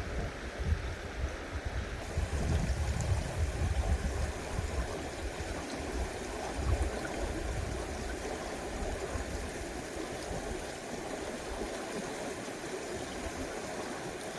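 Mountain stream rushing steadily over rocks, a continuous even water noise.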